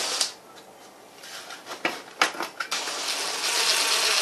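Socket wrench working a nut on a small engine: a few sharp clicks, then a steady run of rapid ratcheting from about three seconds in.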